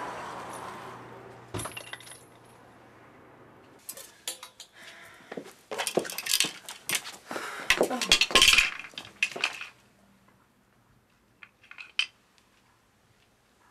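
Clinking and clattering of small hard objects being handled: a dense run of sharp clicks in the middle, then a few last clicks near the end.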